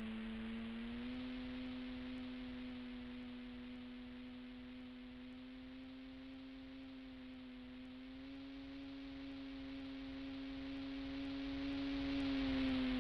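An RC model plane's motor and propeller drone on a steady tone in flight, edging up in pitch a couple of times. The sound fades as the plane draws away and grows louder again near the end as it comes back.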